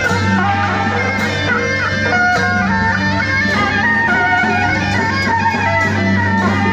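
Beiguan temple music: several shrill suona double-reed horns playing a wavering melody together over a steady low hum, with a few scattered percussion strikes.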